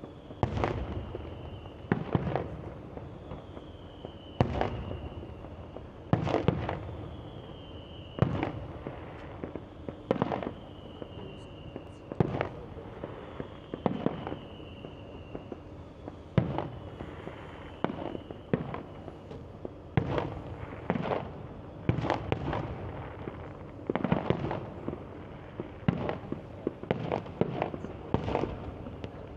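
Fireworks bursting about every two seconds, each bang followed by a short echoing tail, with the bursts coming faster near the end. A faint high whistle falls in pitch between the early bursts.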